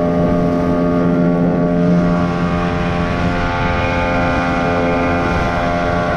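Small outboard motor on an inflatable dinghy running steadily under way, a constant engine drone with water rushing past the hull.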